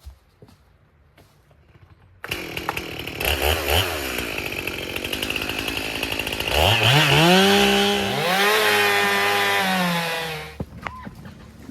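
Two-stroke Stihl chainsaw running: it comes in abruptly about two seconds in, revs up to full throttle about four seconds later, holds there, then drops back to idle near the end.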